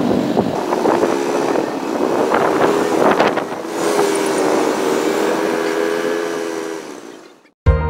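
A vehicle engine running steadily amid outdoor traffic noise, fading out near the end.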